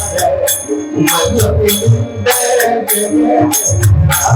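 Devotional kirtan music without voice: drums and small jingling hand cymbals beat out a rhythm under a held melody line.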